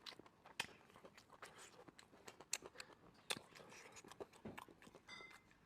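Close-miked chewing and biting: scattered wet mouth clicks and small crunches as someone gnaws meat off a bone.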